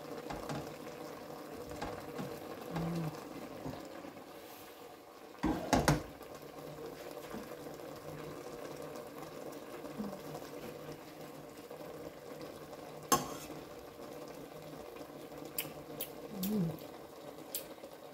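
Fish and vegetables simmering in a stainless steel pot on a gas stove, a steady low bubbling. A spoon clatters against the pot about five and a half seconds in, with another knock later and a few light clicks near the end.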